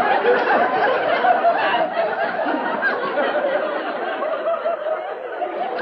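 Studio audience laughing, a sustained crowd laugh that eases off slightly toward the end.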